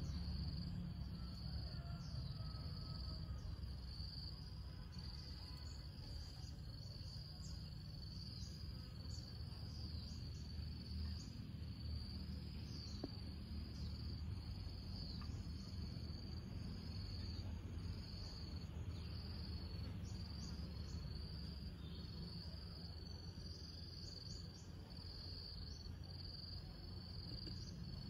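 Crickets chirping: a steady high-pitched trill broken into pulses about a second long, over a low steady rumble.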